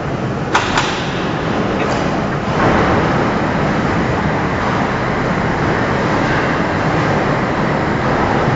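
Overhead bridge crane running along its rails, a steady mechanical rumble that grows louder a little over two seconds in, with two sharp clicks about half a second in.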